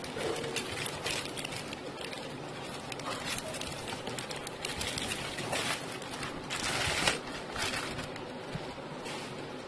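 Plastic courier mailer bag crinkling and rustling as it is handled and pulled off a cardboard box, with louder rustles about five to seven seconds in.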